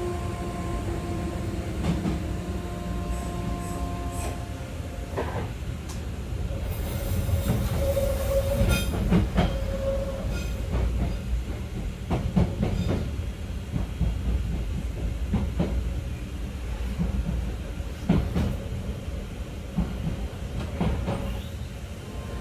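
Hanshin Railway 'Jet Car' electric train with armature-chopper control, heard from inside the passenger car while running. The chopper's steady electric hum sounds in several pitches for the first few seconds, over wheel and running noise with repeated clicks over rail joints.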